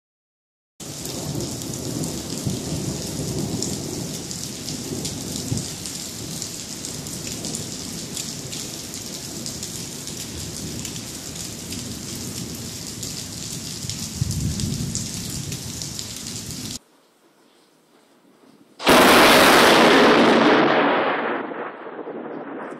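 Rain falling steadily with low thunder rumbling underneath. After a brief break, a loud thunderclap crashes in suddenly and fades away over a couple of seconds.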